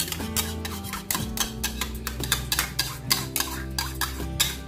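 Metal spoon scraping and clinking against a small bowl, repeatedly, as ketchup is scooped out into the pot, over background music.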